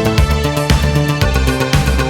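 Italo disco track playing: an electronic drum beat with a steady four-on-the-floor pulse, a pulsing synth bass line and synthesizer chords.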